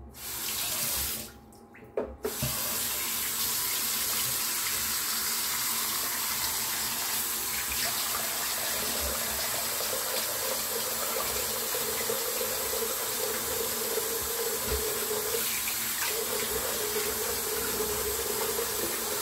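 Bathroom sink tap running steadily into the basin as a freshly shaved face is rinsed by hand. A brief spurt comes first, then the tap runs on from about two seconds in.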